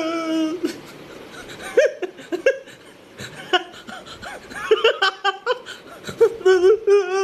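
A man crying: short broken sobbing sounds, then a long wavering wail starting about six seconds in.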